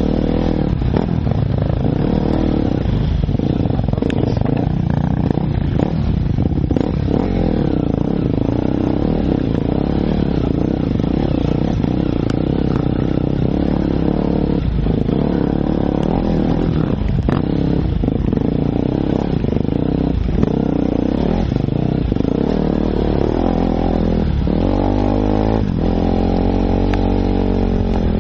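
Enduro dirt bike engine running under load, heard from the rider's seat, its note rising and falling with the throttle and sweeping up and down a few times near the end, with occasional knocks from the bike over the rough trail.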